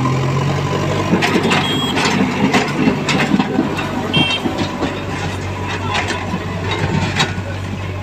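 JCB backhoe loader's diesel engine running steadily as the machine drives over a rubble road, with frequent sharp knocks and clatter from about a second in until near the end.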